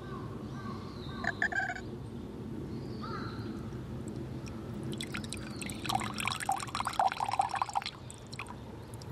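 Filtered water squeezed from a Seychelle portable filter bottle's spout, trickling and splashing into a drinking glass, loudest in the last few seconds. A short bird call sounds about a second in.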